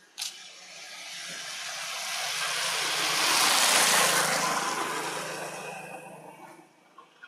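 A motor vehicle passing by. Its noise swells for about three seconds and then fades away.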